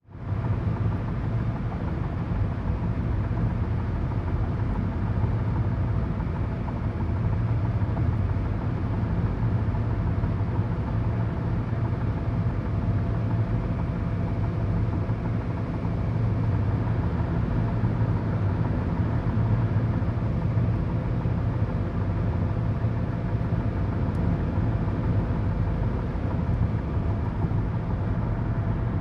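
Steady road and engine rumble heard inside a car cruising on a highway, mostly low and unchanging, with a few faint steady tones above it.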